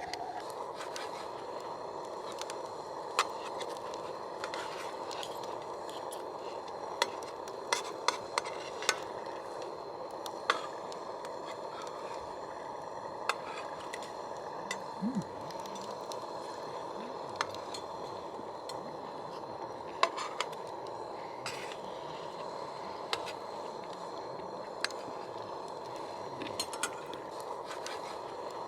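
Food sizzling over a campfire: a steady hiss with scattered sharp pops and clicks.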